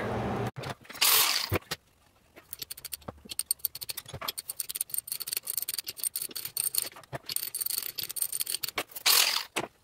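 Two short hisses, one about a second in and one near the end, with a long run of quick rattling clicks between them.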